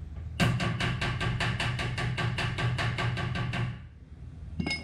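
Rapid, even taps of a body hammer on the Toyota Tundra's dented steel body panel, about seven a second for some three seconds, each with a short metallic ring, as the dent is worked out by hand. Near the end there is a single metallic clink.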